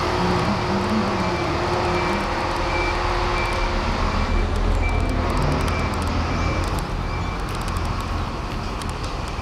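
Heavy truck's diesel engine running steadily, a low rumble, with a faint short high beep repeating about one and a half times a second.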